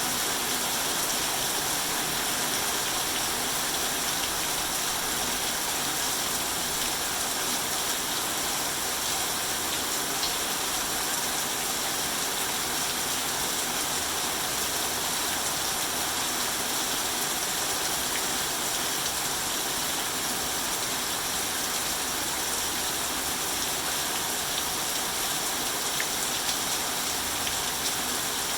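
Rain falling steadily on rice fields, an even hiss with a few faint drop ticks.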